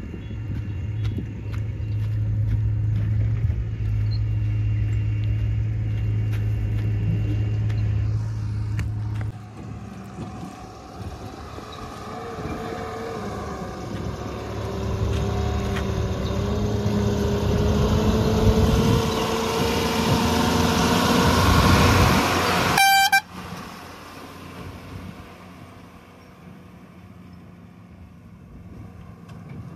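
Heavy diesel engines working: a steady low engine note, then a rise in level and pitch as the engine comes under load, cut off abruptly about two-thirds through with a short horn toot, after which the engine runs more quietly.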